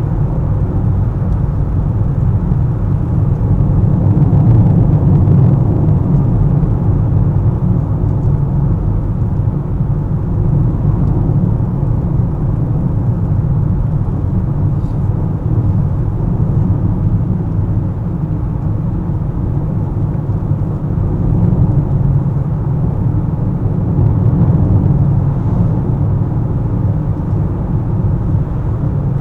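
Steady low rumble of a car driving along a road: engine and tyre noise, swelling slightly now and then.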